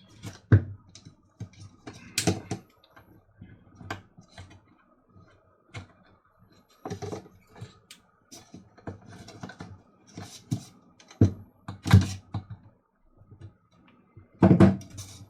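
Irregular clicks and knocks of small plastic parts being handled and fitted together as a coffee grinder's little switch board is put back into its housing.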